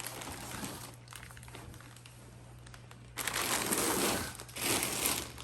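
Packaging crinkling and rustling in two louder spells near the end, as the fidget toys are handled.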